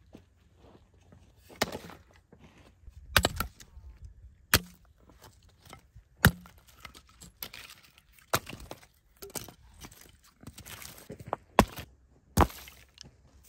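Chunks of dry wood set down and knocked against each other on stony ground while a small fire is stacked. There are about eight sharp wooden knocks at uneven gaps of a second or two, with softer scuffing on the gravel between them.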